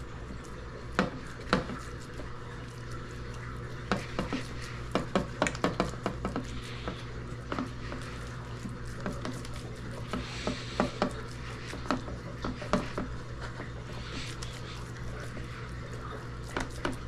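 Hands patting and pressing raw ground-turkey meatloaf mixture into a loaf on an oiled metal baking tray: irregular sharp pats, some in quick runs, over a steady low hum.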